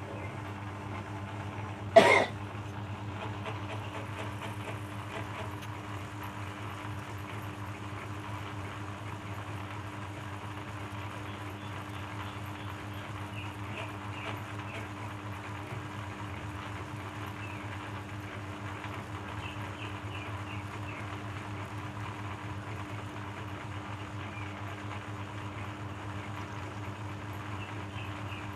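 Shredder machine running with a steady hum, with one sharp, loud crack about two seconds in.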